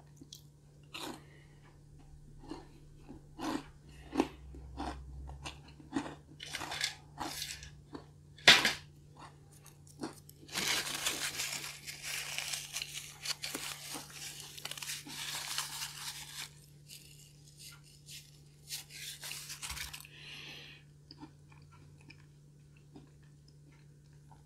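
Close-miked chewing of a crunchy cookie: a string of crisp crunches through the first half, with one sharp crack about eight seconds in. This is followed by several seconds of dense crackling noise, and then it goes quiet.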